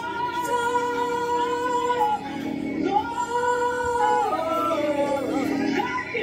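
Karaoke singing over a backing track. A solo voice holds long, steady notes, then sings a falling phrase after about four seconds.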